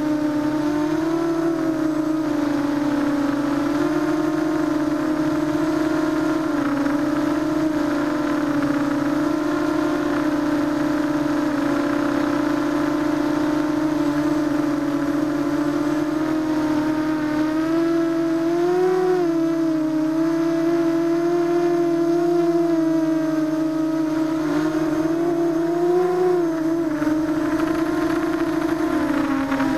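ZMR250 quadcopter's brushless motors and propellers whining steadily, heard from a camera mounted on the drone. The pitch wavers a little with throttle, with small rises about two-thirds of the way through and again near the end.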